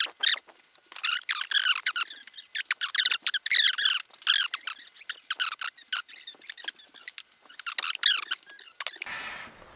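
High-pitched, squeaky chatter of voices, like speech played fast-forward.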